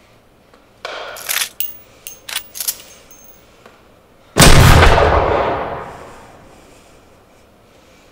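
Metallic rattles and clicks as a rifle is handled and readied, then a single loud rifle shot about four seconds in, with a long echoing tail that fades over about two seconds.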